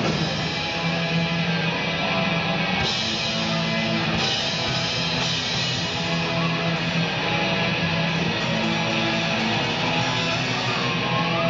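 Live rock band playing an instrumental passage: electric guitar strummed over drums, steady and loud.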